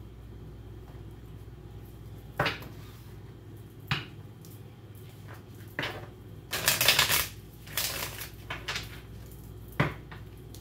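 Tarot cards being handled and shuffled: a few separate taps and knocks, a short burst of shuffling about two-thirds of the way in, then more scattered taps.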